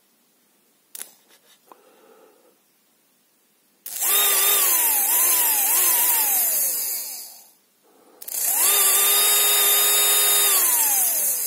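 Small brushed 12 V DC motor switched straight onto full voltage: a few clicks as the wires touch, then it spins up with a high whine that sags and catches again several times before winding down. A second run spins up, holds steady for about two seconds and winds down. This is the jerky start-and-cut-out that happens without a soft start.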